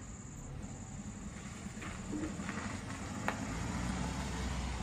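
A sedan driving slowly past, its engine and tyres making a low rumble that grows louder toward the end.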